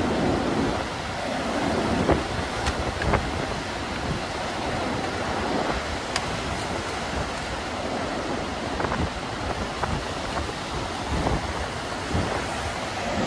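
Strong gusty wind blowing across the microphone over the wash of waves breaking on the Lake Erie shore, a steady noise with a few sharp ticks.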